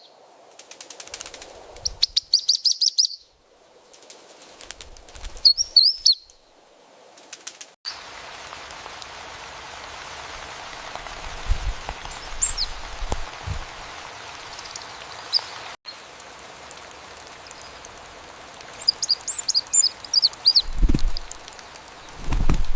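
Cartoon sound effects of a small bird: short high chirps and fluttering wing flaps, over a steady hiss through the middle part, with a few low thuds.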